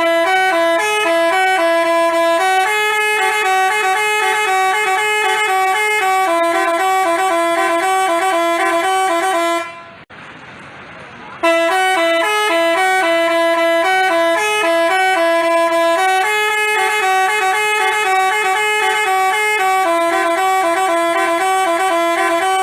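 Basuri telolet multi-tone horn playing a melody of steady notes that step up and down in pitch. It breaks off about ten seconds in and, after a pause of a second or two, plays the tune again.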